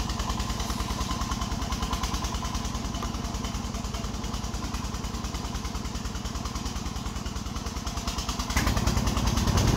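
Công nông farm tractor-truck's single-cylinder diesel engine running steadily with an even, rapid pulse, pulling a load of bamboo uphill. About eight and a half seconds in it grows louder and deeper.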